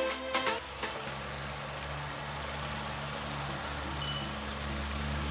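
Ground-meat, tomato and mushroom sauce sizzling in a nonstick frying pan on a gas stove: a steady hiss with a low hum underneath.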